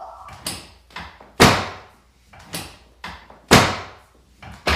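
Chiropractic adjustment table knocking loudly under repeated thrusts: a heavy slam about every two seconds, with lighter knocks in between.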